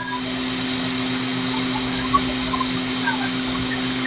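Steady machine hum: an even whirring noise over a constant low drone that does not change.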